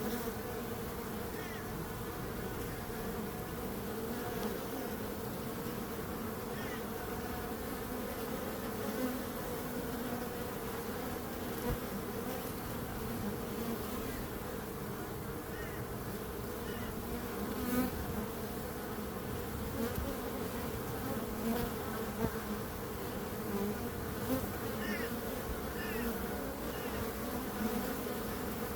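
Bees buzzing in a steady, continuous drone, with a few faint short high chirps here and there.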